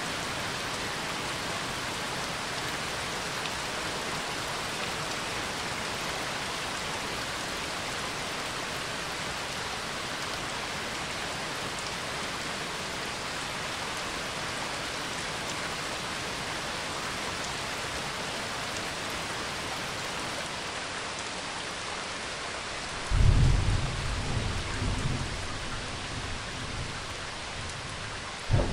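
Steady rain falling. Near the end a clap of thunder breaks in suddenly and rumbles away over a few seconds, and another clap starts right at the close.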